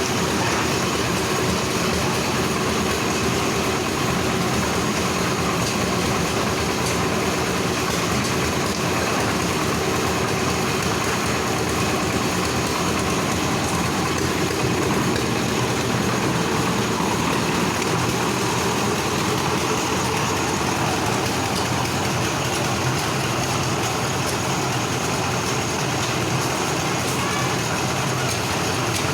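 A motor or engine running steadily at an even level, with a constant low hum.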